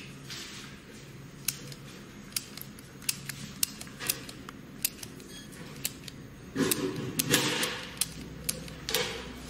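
Metal tweezers clicking and tapping against a small steel dish as mango worm larvae are picked out and sorted, in scattered sharp clicks at an uneven pace, with a louder, longer bout of rattling and scraping about two-thirds of the way through.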